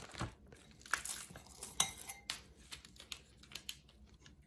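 A spoon scooping potting soil and clinking and scraping against the rim of a ceramic plant pot as soil is packed around a repotted plant: a string of light clicks and short scrapes that thin out toward the end.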